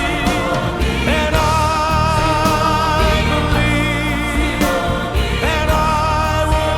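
Gospel-style Christian song: a choir of voices holding long vibrato notes over a steady bass and beat.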